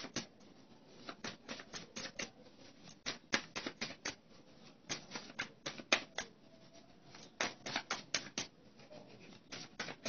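A deck of tarot cards being shuffled by hand: runs of quick, sharp card snaps and slaps, several a second, in bursts with short pauses between.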